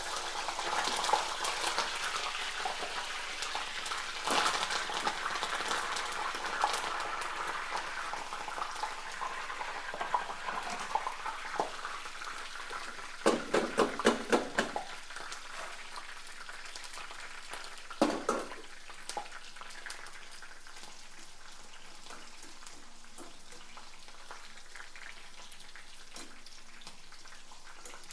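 Curry leaves and green chillies sizzling and crackling in hot oil in a pan, strongest over the first few seconds, then settling to a quieter sizzle. A quick run of knocks on the pan comes about halfway through, and one more knock a few seconds later.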